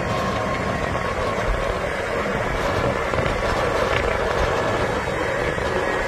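Tractor engine sound running steadily, an even noise with no change in pitch or level.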